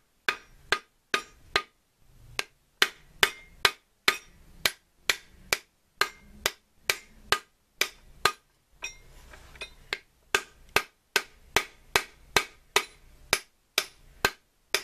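Hammer tapping the two countershafts of a T-90 transmission into their bores in the case, one sharp ringing metal strike after another at about two and a half a second, with a short pause about nine seconds in. The shafts are being driven most of the way in but not fully home.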